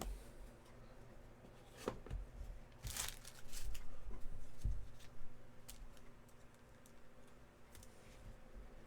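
Trading-card packaging being torn open and crinkled, a noisy rustle about two seconds in, followed by scattered light clicks and taps of handling.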